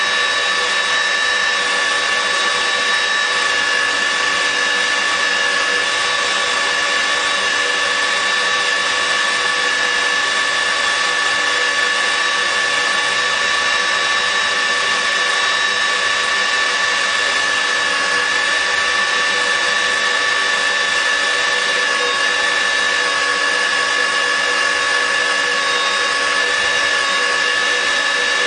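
Steel-drilling machine for structural steel running steadily: an unchanging high whine over a hiss, with no let-up.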